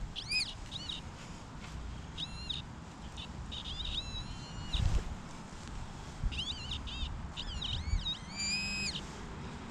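Birds chirping and whistling in many short up-and-down calls, with one longer buzzy call near the end, over a low wind rumble.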